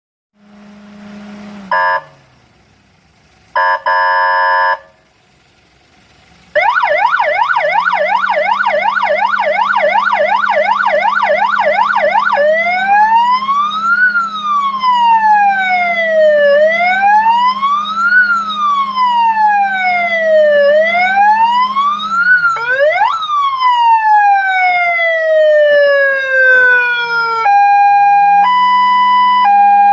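High-power 7-tone electronic siren horn being run through its tones: two short beeps, then a fast yelp sweeping up and down about twice a second, a slow wail rising and falling every four seconds or so, a quick rise into a long falling tone, and near the end a stepped high-low alternating tone. A steady low hum runs under most of it.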